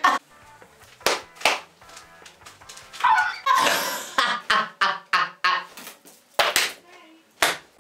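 A young man's exaggerated, loud laughing, in short sharp bursts and gasps broken by brief pauses, with a longer outburst about three to four seconds in.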